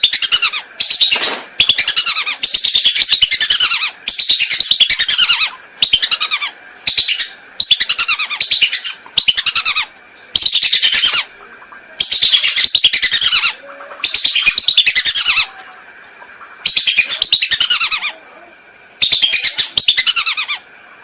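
Whistling ducks (belibis) calling in loud bursts of rapid, falling whistled notes, each burst half a second to two seconds long, repeating about a dozen times with short gaps. This is a recorded call used as a lure to draw the ducks in.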